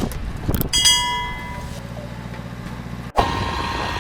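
A vehicle engine running steadily, with a few knocks and a ringing metallic clang about a second in. It cuts off abruptly near the end into a different steady engine noise.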